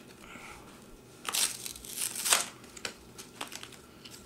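Stiff plastic blister packaging being handled and pulled open by hand, with two louder bursts of rustling about a second and a half and two seconds in, then a few small clicks.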